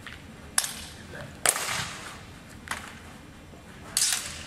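Steel longswords clashing in a fencing bout: four sharp metallic strikes, about half a second in, at a second and a half, near three seconds and at four seconds. The strike at a second and a half is the loudest and rings on briefly.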